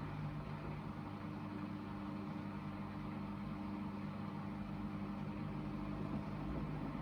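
Hoover VHD 9163 ZI washing machine in its first spin, the drum turning at a steady speed with an even motor hum.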